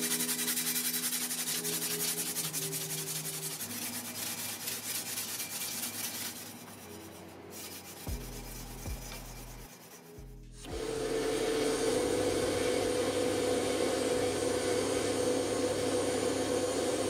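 Sandpaper rubbed by hand back and forth over the steel blade of a large cleaver in quick strokes. About two thirds of the way through, a drill press starts running steadily with a hum as a small bit drills into a wooden handle block.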